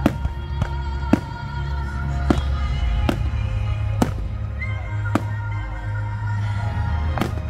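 Fireworks going off in about eight sharp bangs, spaced irregularly a second or so apart, over loud music with heavy bass.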